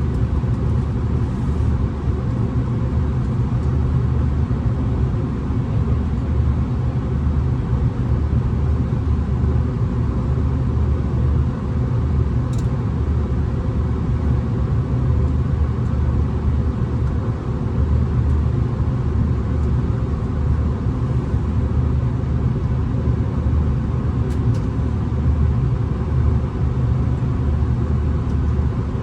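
Steady low rumble of a V/Line VLocity diesel railcar running along the line, heard from inside the carriage. Two faint, brief ticks come about halfway through and near the end.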